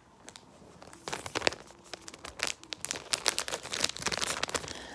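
Small packaging of an Apple headphone adapter crinkling and tearing as it is handled and opened: an irregular run of crackles and clicks that starts about a second in.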